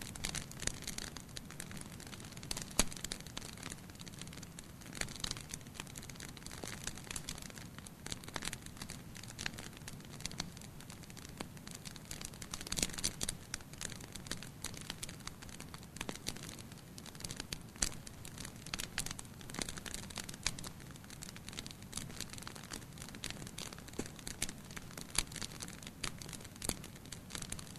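Wood fire burning in a fireplace: a steady low hiss of the flames with irregular sharp crackles and pops from the burning logs.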